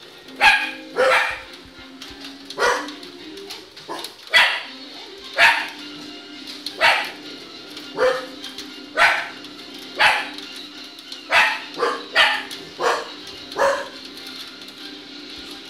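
Small dachshund–schnauzer mix dog barking repeatedly, about fifteen sharp barks roughly one a second, set off by sled dogs on the television.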